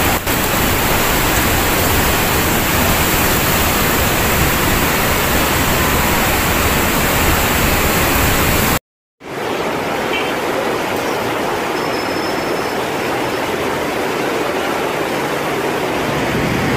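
Flooded mountain river's muddy torrent rushing past, a loud, steady wash of water noise. It cuts out for a moment about nine seconds in and comes back thinner on a second shot of the same flood.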